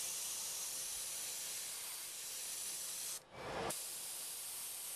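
Siphon-feed airbrush spraying paint with a steady high hiss of air. The hiss cuts out for about half a second a little after three seconds in, with a short soft rustle in the gap, then resumes.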